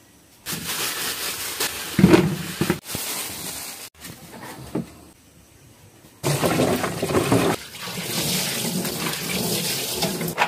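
Water running from a tap into a sink, in two spells: one starts about half a second in and stops near three seconds, the other starts about six seconds in and runs on.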